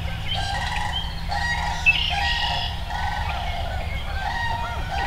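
Field recording of a spring woodland soundscape: many bird calls overlapping, short repeated calls, some with a high chirping edge, over a steady low rumble.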